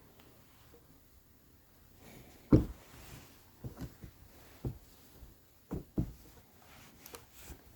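A series of soft knocks and thumps at an irregular pace; the loudest comes about two and a half seconds in, followed by about seven lighter ones.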